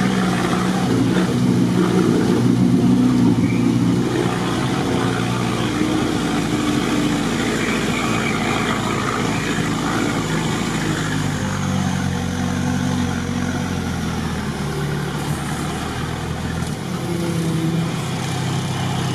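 Off-road 4x4's engine running under load as it wades through a deep ford, its note shifting with the throttle about halfway through, over a steady rush of water churning around the vehicle.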